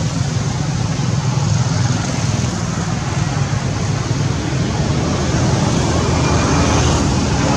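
Steady low rumble with an even hiss above it, with no distinct events.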